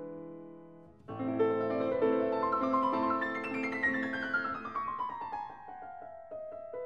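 Background piano music. A held chord fades, then about a second in a new passage begins, with a quick run of notes stepping down in pitch.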